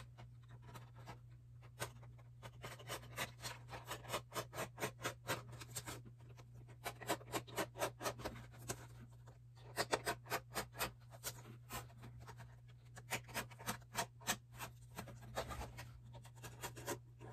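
Hobby knife blade cutting and scraping along duct tape laid over the edge of a painted polycarbonate RC car body: runs of short scratchy strokes, several a second, with brief pauses between runs.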